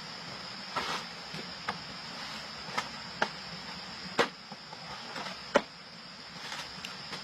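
A steady high-pitched buzz, insect-like, under a series of irregular sharp clicks and snaps, the loudest about five and a half seconds in.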